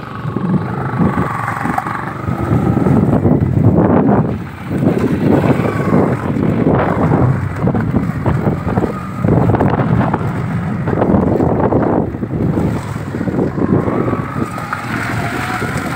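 Wind buffeting the microphone of a moving motorcycle, with the bike's engine buried under it. The rush is loud and gusty, briefly dropping about four and a half seconds in.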